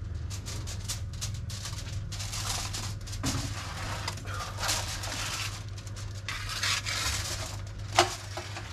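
Metal trays and racks being handled in a barbecue smoker: irregular scraping and clattering, with one sharp clank about eight seconds in.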